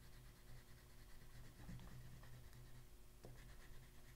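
Faint scratching of a green pastel stick stroking over paper, with a low steady hum underneath.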